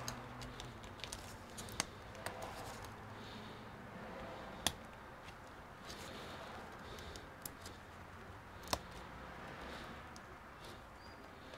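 Small plastic clicks and taps as a spudger and gloved fingers work ribbon-cable connectors on a laptop motherboard, with a few sharper clicks as the connectors are pressed home.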